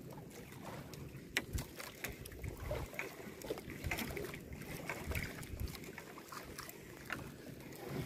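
Choppy water slapping against a small fishing boat's hull, with wind rumbling on the microphone and scattered light knocks and clicks from the boat.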